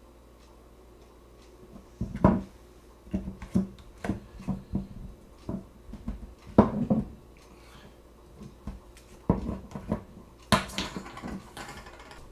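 Glass sesame oil bottle knocking and clunking on a wooden countertop as it is handled, capped and set down: a string of separate sharp knocks, the loudest about two seconds in and midway, with a last cluster near the end.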